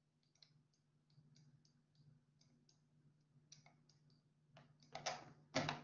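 Faint, irregular clicking and ticking of a stylus on a pen tablet as words are handwritten, over a faint steady hum. A couple of louder brief rustling noises come near the end.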